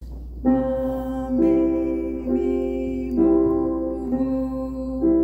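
Grand piano playing a slow line of pitched notes, a new one about once a second, over a steady low hum.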